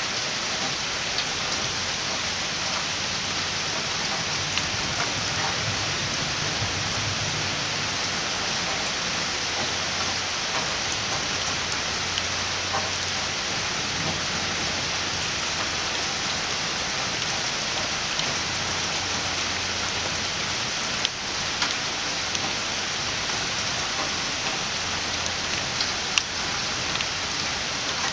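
Steady rain falling on a wet wooden deck, with a few sharper ticks of single drops landing close by, two of them louder near the end.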